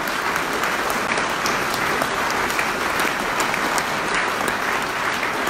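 Large audience applauding steadily, a dense mass of hand claps.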